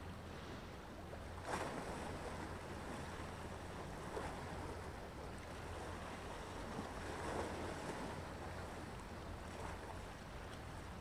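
Small waves washing up on the shore four times, with a steady low rumble of wind and sea beneath.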